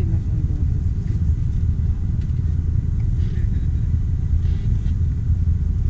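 Jeep Wrangler JL Rubicon running off-road, a steady low rumble.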